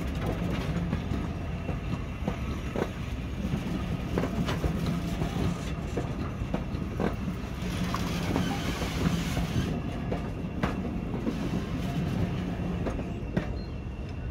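Heritage diesel-hauled train on the move: a steady low engine drone, with irregular clicks and knocks from wheels and coaches running over the track.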